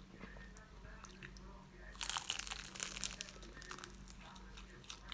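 A bite into a crispy fried turon (banana spring roll), its wrapper crunching loudly about two seconds in, followed by lighter crackly chewing.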